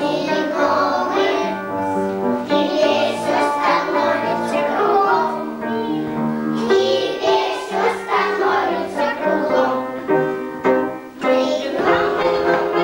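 A group of young children singing a Russian song in unison over instrumental accompaniment, with a short break in the singing about eleven seconds in.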